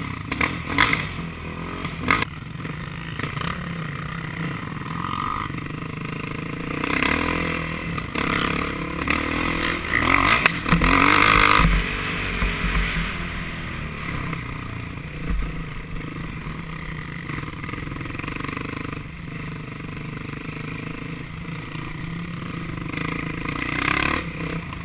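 Enduro motorcycle engine running and revving as the bike rides over a dirt trail, heard from a helmet-mounted camera with wind noise and rattling knocks. A few sharp knocks come in the first couple of seconds, and it is loudest around ten to twelve seconds in.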